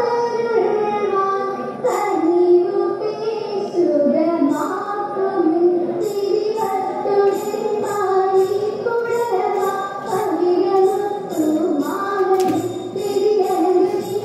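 Young female voices singing a Margam Kali song in unison, a steady flowing melody. From about six seconds in, sharp strikes keep the beat about twice a second.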